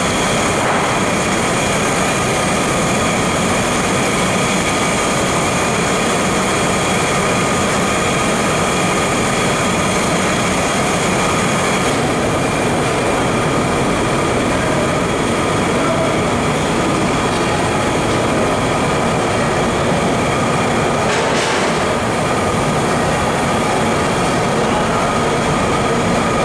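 Steady sizzle and burner roar of chicken pieces deep-frying in a large kadai of oil over a gas flame, unchanging throughout.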